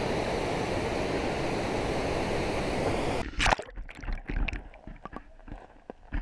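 Steady rushing of water spilling over a low weir; a little over three seconds in it drops abruptly to a muffled underwater hush as the action camera plunges below the surface, with a splash and scattered knocks and gurgles after it.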